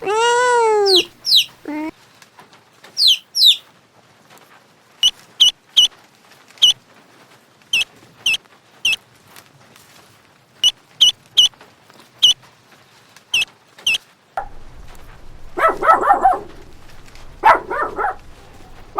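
Animal calls: a drawn-out pitched call near the start, then many short high chirps scattered irregularly over the next dozen seconds, then two or three harsh bark-like calls near the end.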